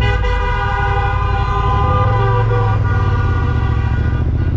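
A vehicle horn sounds over the low running of a Yamaha Ténéré 700's parallel-twin engine, which has its exhaust dB killer removed. The horn note starts suddenly and fades out after about three seconds, while the engine keeps running at low revs.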